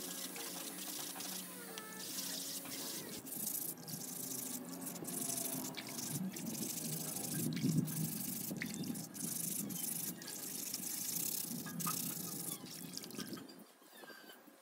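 Metal jack parts being scrubbed with a sponge scourer in a plastic basin of soapy water: water sloshing and splashing with the rubbing strokes, easing off near the end as a part is lifted out.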